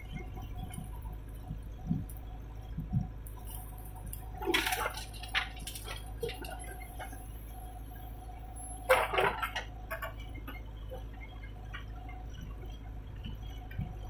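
JCB 3DX backhoe loader working, a steady low diesel hum underneath. Two short rushing bursts of noise break in, about four and a half and nine seconds in.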